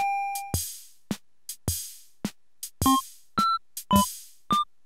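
Electronic music with a drum-machine beat and short synthesizer notes. A held note fades out about half a second in, followed by sparse drum hits and, from about three seconds in, clipped synth stabs.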